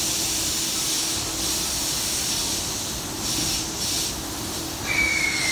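Orange-striped E233-series Chuo Line rapid train standing at a station platform: a steady hiss and a low hum, with brief louder hisses about a second in and again past the three-second mark. Near the end a high whistling tone sets in and slides slightly downward.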